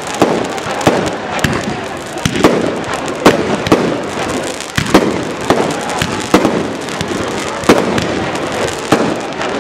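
Fireworks display: aerial shells bursting overhead in a rapid, irregular string of sharp bangs and crackles, several a second.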